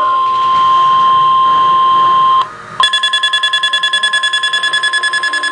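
Weather radio alert: a steady, loud warning tone that stops about two and a half seconds in, then after a brief break a fast-pulsing electronic alarm beeping several times a second, the alert signal that comes with a severe thunderstorm warning broadcast.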